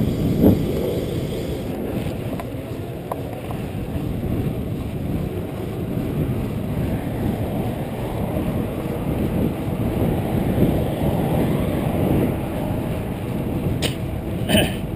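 Wind rushing over a chest-mounted action camera's microphone together with the tyre rumble of a mountain bike rolling on pavement. A couple of short sharp clicks come near the end.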